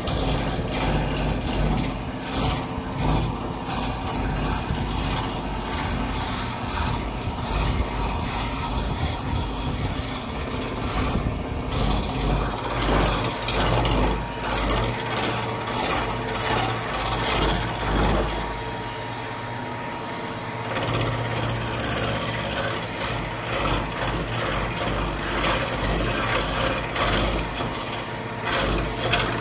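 Hand chisel cutting a spinning wooden blank on a wood lathe: a continuous rasping scrape of the tool on the wood over a steady low hum. The scrape eases briefly about two-thirds of the way through.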